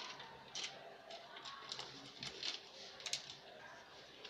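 Faint, scattered small clicks and light metal taps as small bolts and ballpoint-pen springs are handled and slipped onto a metal rod.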